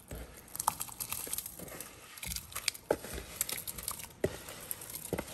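Cornmeal poured slowly into a pot of hot water while a wooden spoon stirs it in, with irregular light taps and scrapes of the spoon against the pot.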